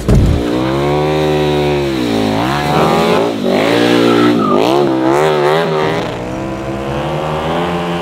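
KTM 1290 Super Duke R EVO's V-twin engine revving up and down several times while the bike is drifted, with tyre squeal from the spinning rear tyre.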